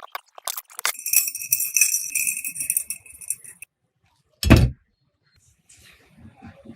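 Small metal parts jingling and rattling with a ringing tone for about two and a half seconds, cutting off abruptly, then a single heavy thump.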